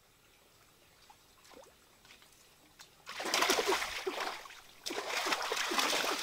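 A person splashing with both hands in shallow muddy floodwater, grabbing for fish. After a few quiet seconds with faint small splashes, loud splashing starts about three seconds in, pauses briefly, and starts again.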